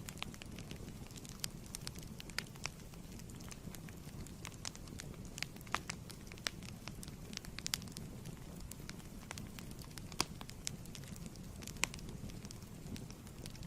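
Wood fire burning in a fireplace: a steady low rumble of flames with irregular sharp crackles and pops.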